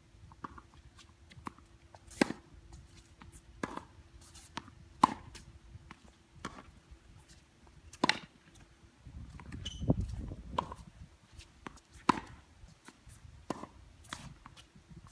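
Tennis ball struck by a racket on a hard court, a sharp pop every three to four seconds, with softer clicks between. A low rumble swells and fades about two-thirds of the way through.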